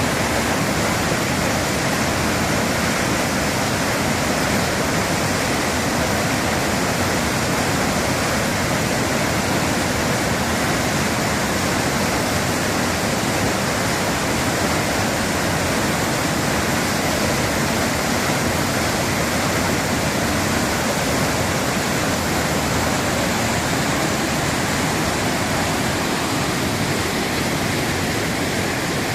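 Waterfall swollen by heavy rain: a loud, steady rush of falling water.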